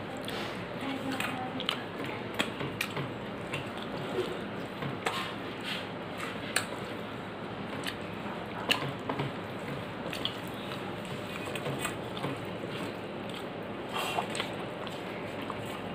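A person eating rice, dal and curry with her hand from a metal plate: mixing the food by hand and chewing, with irregular short clicks over a steady background hiss.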